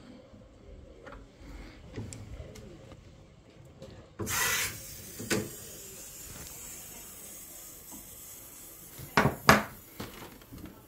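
Handling noise from the camera being moved: cloth rubbing across the microphone in a short loud rustle about four seconds in, then two sharp knocks close together near the end as it is set down.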